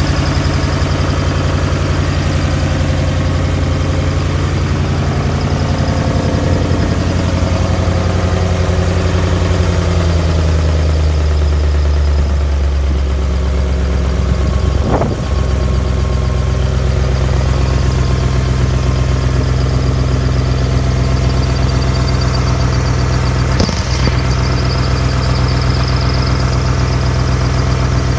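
2008 Mustang GT's 4.6 L V8 idling with a loud ticking. The engine note steps down to a lower, steady idle about ten seconds in, and there are brief sharp sounds about halfway through and again near the end.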